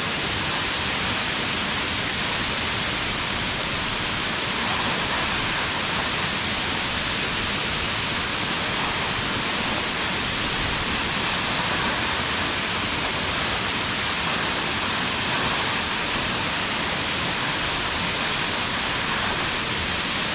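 Waterfall: a steady, even rush of falling water with no pauses or changes.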